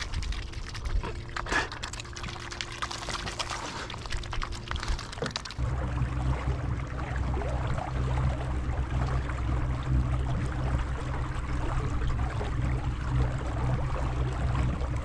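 Mute swans dabbling and splashing at the water's surface beside a boat, with quick wet clicks and trickling water. About five seconds in this changes abruptly to a steady low hum over a water hiss.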